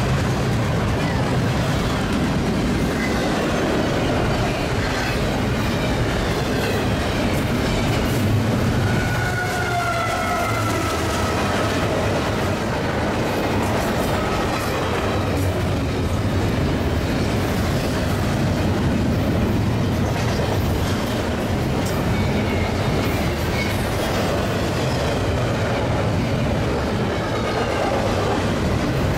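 Union Pacific double-stack container train's well cars rolling past close by: steady rolling noise of wheels on rail, with faint wheel squeals about a third of the way in and again later on.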